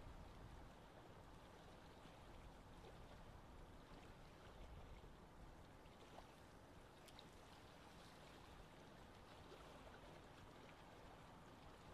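Near silence: faint steady outdoor background hiss, with one tiny tick about seven seconds in.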